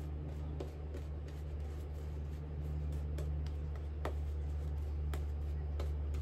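Shaving brush with a Shave Mac knot working lather onto the face: soft scratchy bristle strokes with scattered small clicks and crackles of the lather, over a steady low hum.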